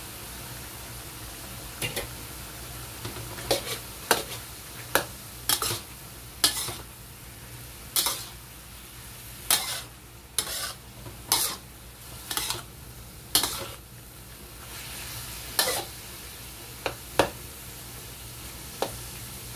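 Metal spatula scraping and clanking against a wok, irregularly about once a second, as chicken and vegetables are stir-fried over a steady sizzle.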